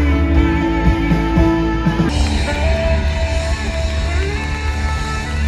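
Live rock band playing an instrumental passage, guitar over bass and drums; the sound brightens about two seconds in.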